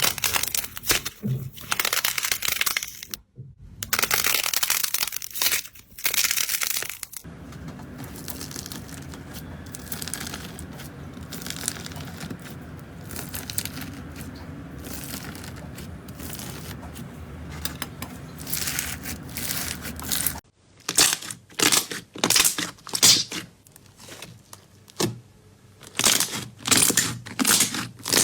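Hands squeezing and pressing slime in quick, irregular squishes and crackles. In a quieter middle stretch a steady low hum sits under fainter handling sounds.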